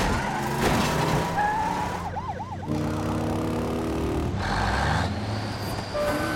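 Police car siren, going into a fast yelp about two seconds in, over the running of heavy vehicle engines in a film chase soundtrack.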